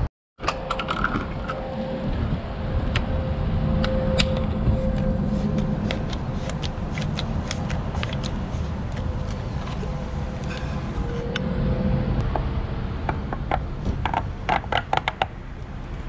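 Plastic clicks and scrapes as a flexible pour spout is fitted and screwed onto a 5-litre plastic jug of AdBlue, with a quick run of sharp clicks near the end, over a steady low rumble.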